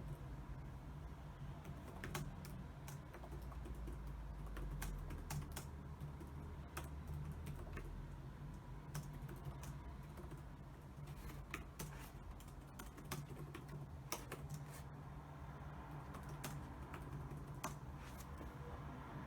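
Typing on a computer keyboard: irregular, uneven key clicks throughout, over a low steady hum.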